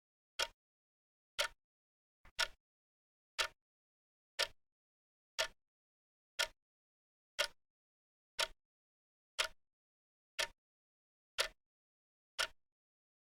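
Wrist watch ticking steadily, one sharp tick a second.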